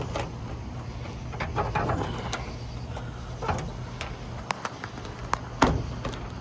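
Scattered metallic clicks and taps as a trunk lock cylinder's retaining clip is worked back into place by hand, the sharpest click a little before the end, over a steady low hum.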